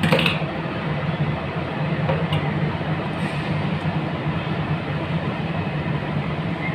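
Steady low rumble and hum of background machinery noise, with a sharp click near the start and a faint tick a couple of seconds in as a wire is handled and fitted into a contactor terminal.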